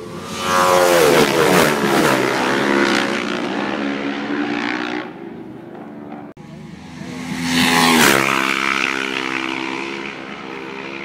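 Supertwin twin-cylinder racing motorcycles going past flat out, twice: each pass rises loud, drops in pitch as the bikes go by, and fades over a few seconds. The second pass starts after an abrupt break about six seconds in.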